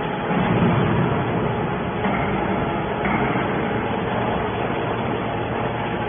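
Hydraulic scrap metal baler running steadily, an even machine noise with a low hum.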